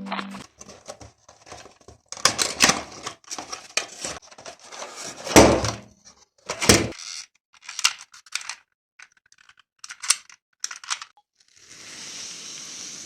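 Toy cars being handled: a scattered run of plastic clicks, rattles and rustles, with two louder thuds midway and a short hiss near the end.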